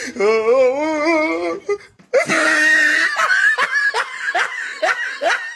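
Hearty laughter: a long wavering laugh, then after a brief break a breathy run of short laugh bursts.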